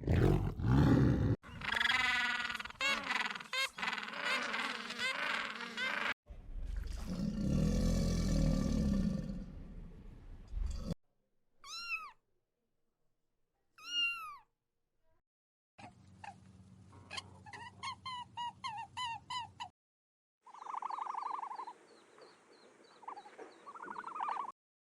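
A string of short animal calls, spliced one after another with abrupt cuts and brief silences between them. Drawn-out pitched calls fill the first half, followed by two short chirps and then a fast run of clicking calls.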